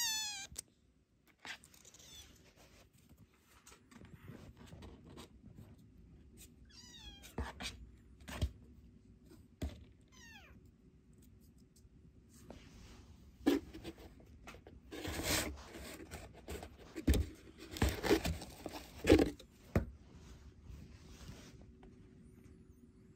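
Kitten meowing: a loud meow at the start that falls steeply in pitch, then a few fainter meows around seven and ten seconds in. Between about thirteen and twenty seconds come a run of sharp knocks and scuffles, the loudest sounds, as kittens move about in a cardboard box house.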